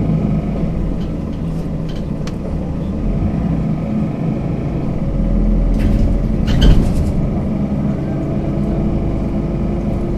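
Mercedes-Benz Citaro C2 city bus engine running with a steady low drone, and a brief clatter about two-thirds of the way through.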